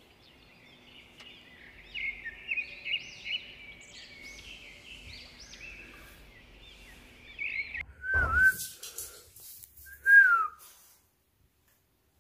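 Small Pomeranian–Spitz mix dog whining in a rapid string of short, high-pitched whimpers, then two louder, longer whines near the end, the last one falling in pitch.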